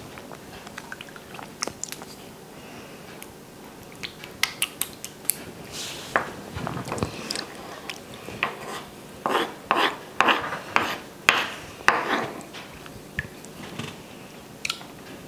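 Wooden spoon clicking and scraping as it scoops soft agar jelly off a wooden board, with wet mouth sounds of eating. The clicks come in a quick scattered series, sparse at first and busiest in the second half.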